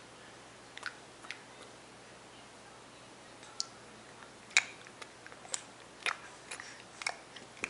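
A baby making sharp clicking mouth noises with his tongue, like pretend chewing: a couple of clicks about a second in, then clicks about every half second from the middle on.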